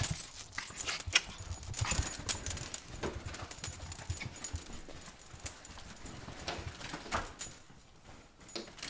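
A pet dog moving about and searching, with scattered light clicks and jingles. It falls quieter near the end.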